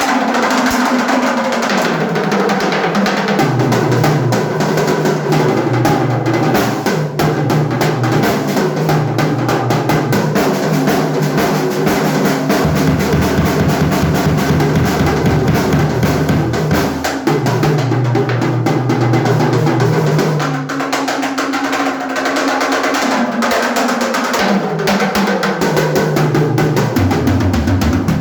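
Pearl acoustic drum kit played continuously, with snare, bass drum and cymbals, including snare rolls. Sustained low notes that shift in pitch every few seconds run underneath.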